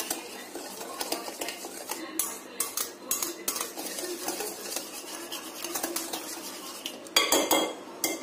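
Wire whisk stirring a thick mix of instant coffee, sugar and warm water in a glass bowl, its wires scraping and clinking steadily against the glass. A louder clatter comes near the end.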